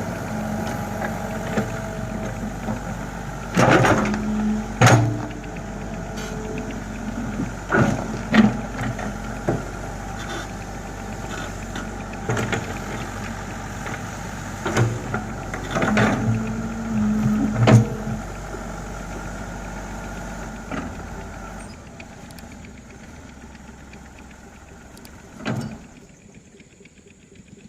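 Komatsu hydraulic excavator's diesel engine running steadily while it works, with about ten sharp metallic clanks and knocks. The engine sound drops away about three-quarters of the way through, and one last knock comes near the end.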